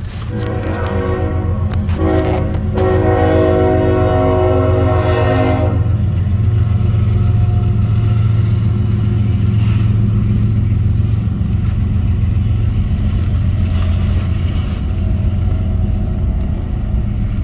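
Diesel freight locomotive's horn sounding in blasts with short breaks, the last held until about six seconds in. Under it and after it, the steady low rumble of the lead locomotives' engines as they pass through the grade crossing.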